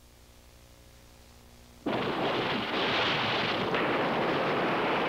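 Faint electrical hum, then about two seconds in a loud, steady rush of wind and sea noise cuts in suddenly and holds.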